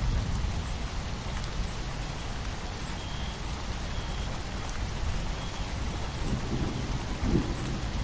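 Steady heavy rain falling, with a low rumble of thunder underneath that swells briefly near the end. A faint high note repeats about once a second from about three seconds in.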